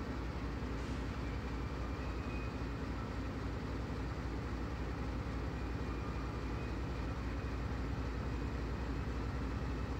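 Norfolk Southern freight train's diesel locomotives idling with a steady low rumble.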